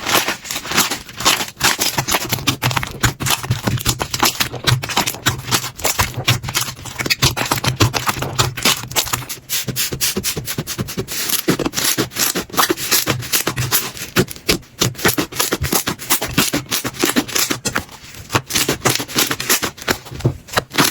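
Slime being squeezed and pressed by hand, giving a dense run of crackling clicks and pops.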